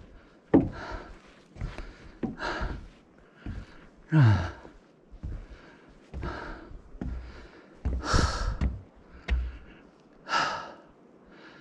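A hiker breathing hard after a steep climb with a heavy backpack: loud, noisy exhales every second or two, one of them a voiced sigh falling in pitch about four seconds in. The heavy breathing is a sign of exhaustion after the climb.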